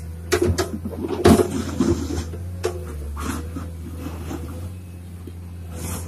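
Komatsu PC210 hydraulic excavator's diesel engine running steadily with a faint hydraulic whine, while its bucket scrapes and breaks up chunks of old asphalt and soil, with several sharp knocks and clatters, the loudest about a second in.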